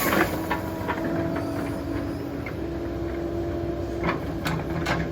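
Caterpillar 308 mini excavator running as it creeps down a steep slope: a steady diesel rumble with a held whine, and occasional metallic clanks.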